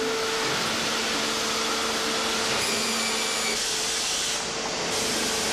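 Steady machine noise of a composite moulding workshop: an even hiss with a low, steady hum underneath, shifting slightly a few times and dipping briefly near the end.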